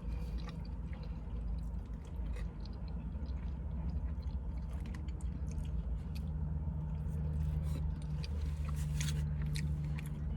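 Close-up chewing of poutine, with wet, squishy mouth sounds and scattered small clicks. A steady low hum runs underneath and grows a little stronger about halfway through.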